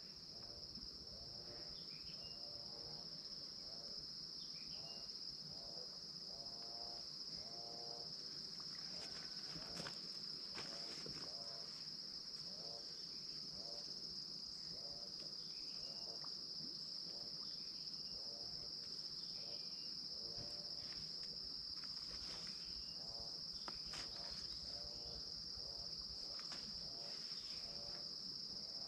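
Insects trilling: one unbroken high-pitched chorus, with short lower calls repeating about once or twice a second and a few faint clicks and chirps.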